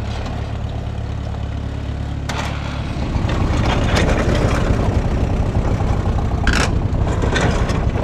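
An old tractor engine running at idle. About three seconds in it gets louder and rougher, with a few sharp metallic clanks.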